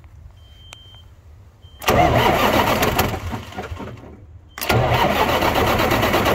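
Cummins diesel in a Kenworth log truck being cranked and started without the key, which does nothing. A first loud try starts suddenly and dies away after a couple of seconds; a second one follows about a second later, catches, and keeps running steadily.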